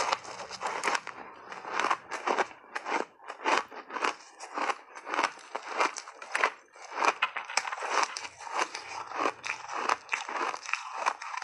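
Ice chunks dusted in matcha powder being bitten and chewed, a dense run of sharp cracks and crackles.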